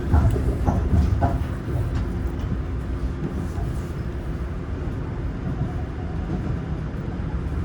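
Old-type Seoul Subway Line 4 train with a Toshiba GTO inverter drive running between stations, heard from inside the car: a steady rumble of wheels on rail with a constant hum from the drive. A few knocks come in the first second or so.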